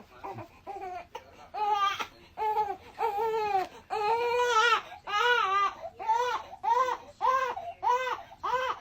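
A run of wailing cries, each rising and falling in pitch, coming faster towards the end with one longer cry in the middle.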